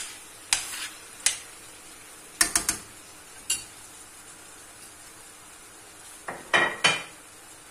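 A metal spoon scraping and knocking against a stainless-steel frying pan as minced beef and onion are stirred, with a quick run of taps about two and a half seconds in. A louder double clatter follows near the end, over a faint steady sizzle of the mince and onion frying.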